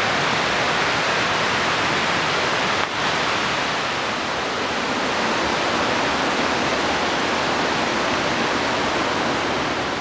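Water rushing down from a concrete reservoir dam: a steady, even rush like a waterfall.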